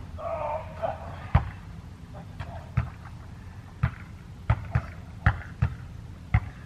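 A basketball bouncing on an outdoor court: about eight sharp thuds at uneven intervals, with faint distant voices in the first second.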